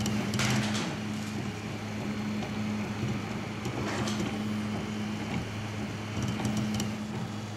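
Prusa i3 RepRap 3D printer running mid-print: its stepper motors hum in low tones that shift and break off as the print head moves. A couple of brief rustling noises come about half a second in and again about four seconds in.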